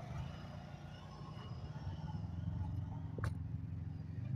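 A Honda Pioneer side-by-side's engine running, heard faintly as a steady low rumble, with a single sharp click about three seconds in.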